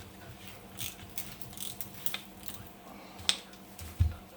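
Light, scattered metal clicks and taps as a piston is worked into its cylinder through a piston ring compressor, with one sharp click a little past three seconds in and a dull thump near the end.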